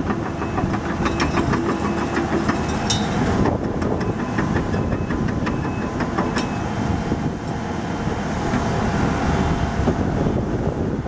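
Case 9010B excavator's four-cylinder turbo diesel engine running, with a rapid, even metallic clatter over it through the first few seconds and scattered clicks later as the hydraulic arm and bucket start to move.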